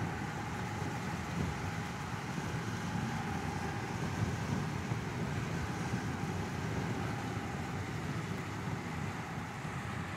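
Steady, even rumble of a car driving: tyre and engine noise.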